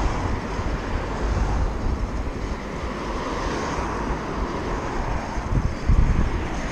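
Wind gusting on the microphone over a steady rush of outdoor road noise, with a stronger buffet about a second before the end.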